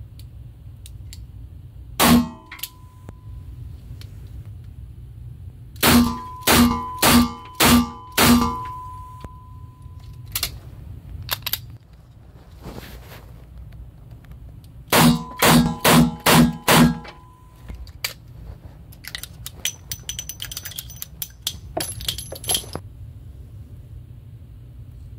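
Ruger LCR revolver firing .38 Special +P rounds in an indoor range: one shot, then two quick strings of five shots, each shot sharp with a ringing tail. Lighter metallic clicks and clinks follow near the end.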